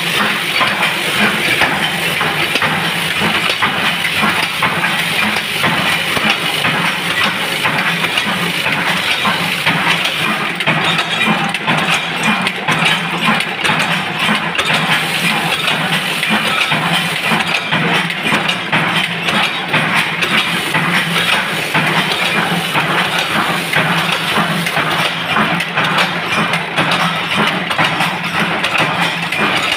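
Bolt-making machinery running steadily: a vibratory bowl feeder rattling its load of bolt blanks and the forming machine it feeds working nonstop. It makes a loud, constant mechanical hum under a dense, fast metallic clatter.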